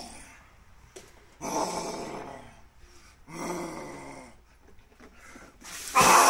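A man growling in deep, drawn-out bursts of about a second each, with pauses between, then near the end a tub of ice water pouring over him with a loud splash.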